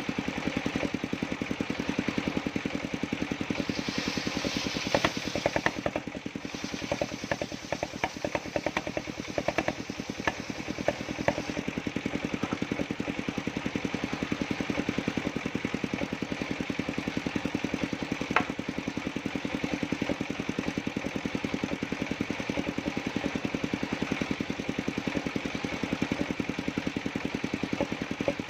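Engine of a circular sawmill running steadily. A cluster of sharp knocks and clatters comes between about five and twelve seconds in, and one more knock follows a few seconds later.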